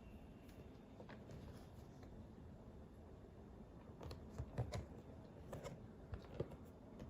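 Packaging of a boxed doll being handled: soft clicks, taps and rustles, with a cluster of louder taps a little past the middle and one sharp tap near the end.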